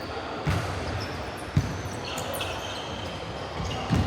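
Basketball bouncing on an indoor court floor during a game: a few sharp thuds, about a second in, then again near the end. Short high shoe squeaks come in between.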